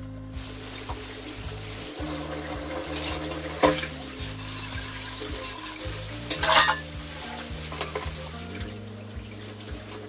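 Steel dishes being scrubbed and handled at a kitchen sink, with a steady hiss of washing and two loud clatters of steel utensils, about three and a half and six and a half seconds in. Background music with a low bass line plays underneath.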